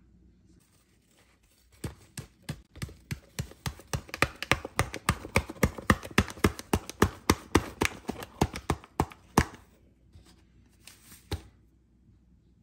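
A paper packet of corn flour being shaken and tapped over a plastic blender jug as the flour is poured in: a quick run of sharp crackles and taps, about four a second, for some seven seconds, then one more click near the end.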